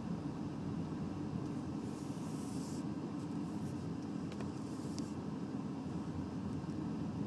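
Steady low rumble of a car's engine and tyres heard from inside the cabin while driving on a snow-packed road, with a brief hiss about two seconds in and a couple of faint clicks.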